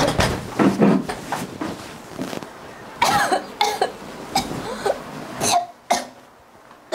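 A woman coughing and retching over a toilet in several harsh bouts, dying down near the end.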